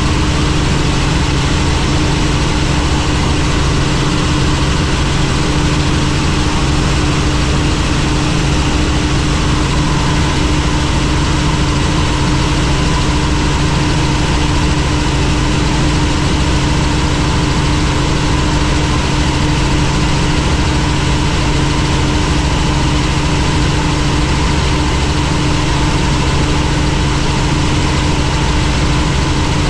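Helicopter running, a loud unbroken drone with a constant low hum.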